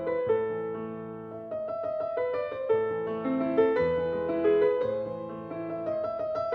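Background music: a gentle piano melody with held chords, notes changing about every half second.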